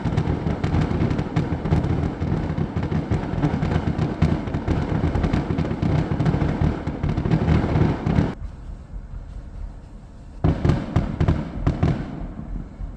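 Fireworks display: a dense, rapid barrage of booms and crackles, breaking off for about two seconds after some eight seconds, then bursting again.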